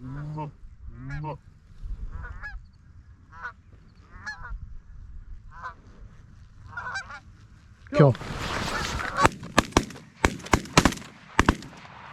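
Canada geese honking in short calls as they come into the decoys, then a shout of "Kill" about eight seconds in and a rapid volley of about eight shotgun blasts from several hunters firing at the landing flock.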